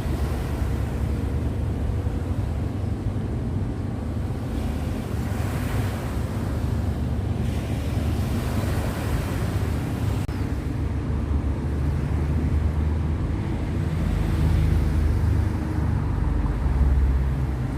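Wind buffeting the microphone: a steady rumbling noise that swells in gusts, strongest about two-thirds of the way in and again near the end.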